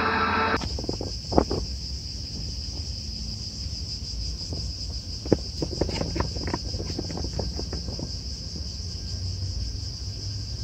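Steady high-pitched chirring of insects by a pond, over a low outdoor rumble, with a few scattered sharp clicks. A brief mechanical hum cuts off abruptly about half a second in.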